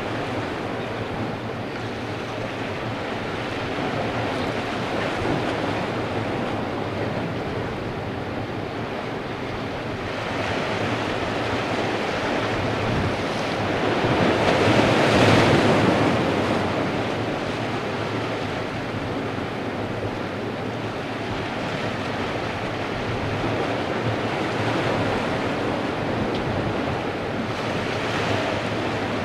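Ocean surf washing against a rock wall in surging waves, the loudest surge about halfway through.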